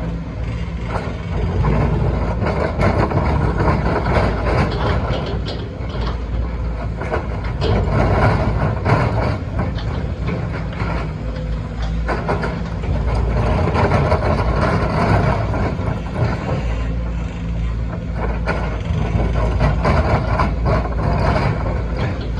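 Sumitomo SH210 hydraulic excavator's diesel engine running under load, its loudness swelling and easing every few seconds as it works, with scattered knocks and clanks.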